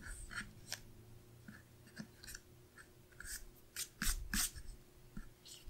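Paper stickers being handled and slid across a planner page: faint scattered rustles and light taps, with a few louder paper rustles past the middle.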